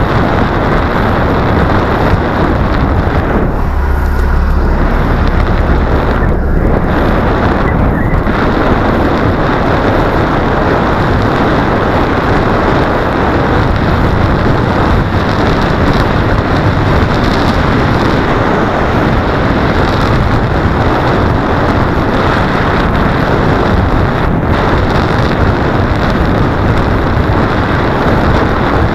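Wind rushing over a bicycle helmet camera's microphone while riding, a loud, steady rumble and hiss.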